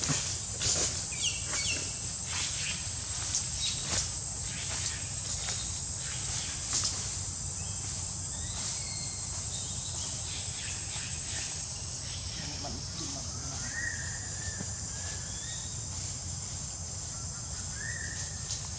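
Insects droning in a steady high pitch, with scattered rustles and clicks in the first half and a couple of short chirping calls near the end.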